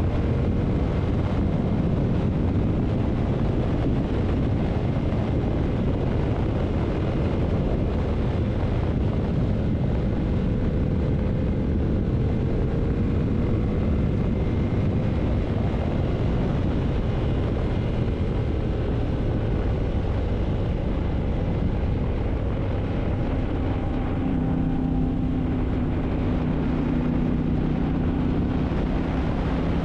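Yamaha MT-07's 689 cc parallel-twin engine running at speed on the road, mixed with steady wind rush on the camera microphone. The engine note drifts slowly up and down, then holds steady near the end.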